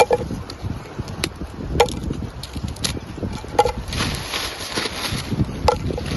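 Hard, stale bread being broken apart by hand: sharp, irregular cracks, about six in six seconds.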